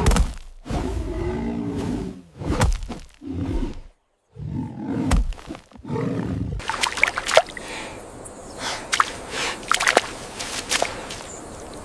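A large animal growling in several short, loud bursts for the first half, then an outdoor background with a few sharp snaps or cracks.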